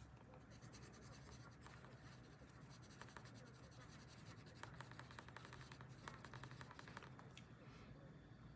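Faint scratching of a yellow colored pencil on paper, shading back and forth in short runs of quick strokes.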